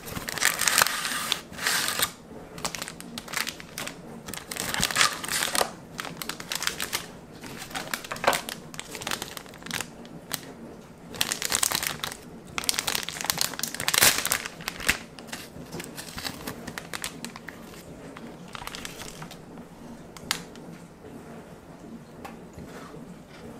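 Plastic inner wrapper and cardboard box of Pocky Strawberry crinkling and rustling in irregular bursts as they are handled and opened. The crinkling dies down after about fifteen seconds, with a single sharp click near the end.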